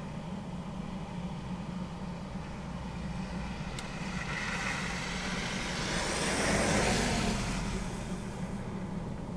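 A car driving past close by: its tyre noise on the slushy road swells, peaks about two thirds of the way in, then fades. A steady low hum runs underneath.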